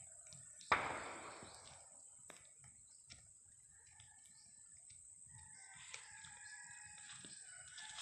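A rooster crowing faintly through the second half, with sustained, slightly wavering tones. About a second in there is a single sudden knock, the loudest sound, which dies away quickly.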